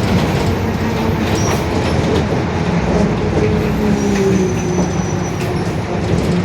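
Mercedes-Benz OF-1721 city bus under way: steady rumble with the differential droning very loudly. A low drone strengthens and rises slightly in pitch about halfway through.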